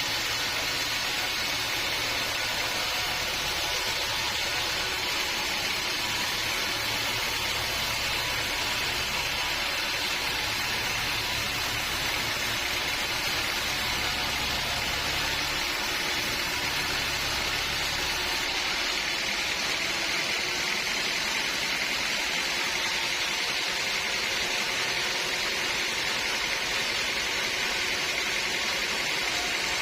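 Sawmill machinery running steadily, a loud even whir with a low hum underneath that drops away about two-thirds of the way through.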